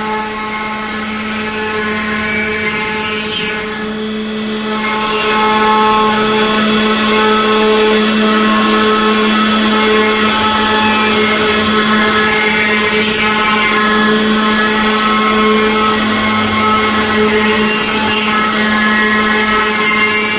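CNC stone router's spindle running steadily with its cutter grinding into stone under a water spray, a constant hum and whine, louder from about five seconds in.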